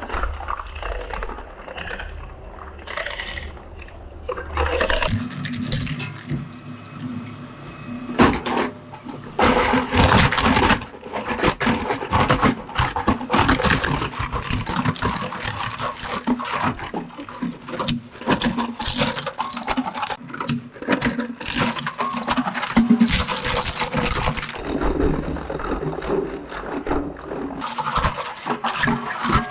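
Twin-shaft shredder with hook-shaped steel blades tearing through toy cars and their packaging. Dense, irregular cracking and snapping as the pieces are crushed. It is quieter for the first few seconds, then much louder.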